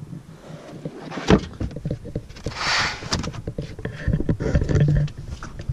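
Handling noise from a Toyota Auris estate's boot floor being closed over the underfloor storage trays: a sharp knock about a second in, a brief rustle, then a run of small clicks and bumps.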